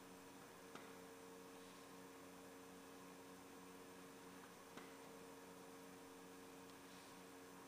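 Near silence with a steady low electrical hum, and two faint clicks, about a second in and near five seconds in.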